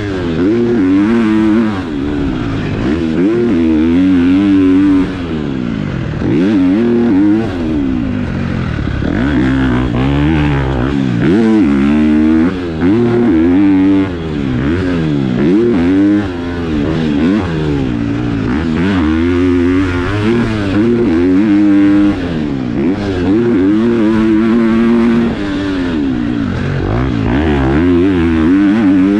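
KTM four-stroke motocross bike's single-cylinder engine being ridden hard, its pitch rising and falling again and again every second or two as the throttle opens and closes, with a few short drops in loudness when the throttle is shut off.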